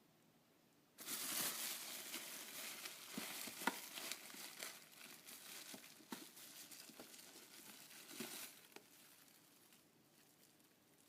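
Packaging being crinkled and handled: a run of crinkling with small sharp clicks that starts about a second in and dies away after about seven seconds.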